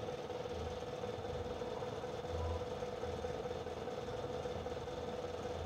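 Steady low hum of an idling engine with a faint constant whine, the low end pulsing unevenly.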